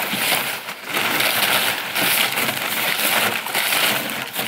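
Crumpled packing paper crinkling and rustling as it is pulled by hand out of a wooden crate.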